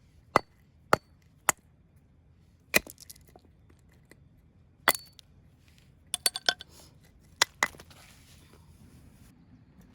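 A series of sharp, irregular knocks or clacks, about a dozen in all, some with a brief high metallic ring, and a quick run of several a little past the middle.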